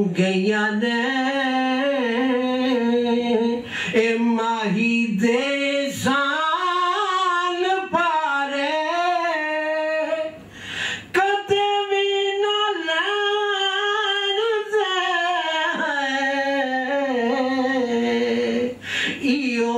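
A man singing unaccompanied, long drawn-out phrases with wavering held notes; he pauses for a breath about ten and a half seconds in.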